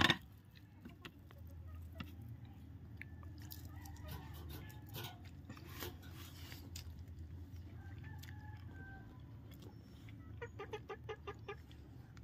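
Chickens clucking faintly, with a quick run of about seven clucks about ten and a half seconds in, over a low steady hum.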